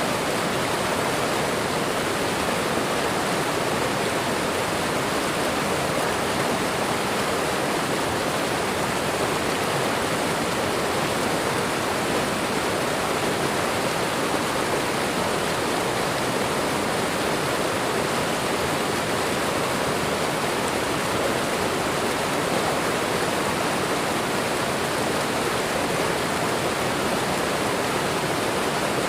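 Waterfall and running water rushing as a steady, unbroken noise.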